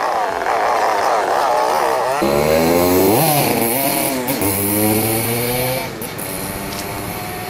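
An engine revving up and down over and over with a rasping buzz, stronger and deeper from about two seconds in, then dropping to a quieter, steadier run near the end.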